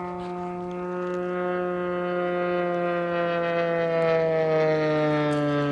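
Radio-controlled T-6 model airplane's G80 twin engine droning at speed on a low pass, growing louder toward a peak about four seconds in while its pitch slowly falls as it goes by.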